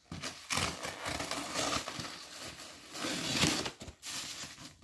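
Wrapping paper being torn and crinkled as a gift is unwrapped, in a few long rips, the loudest about three and a half seconds in.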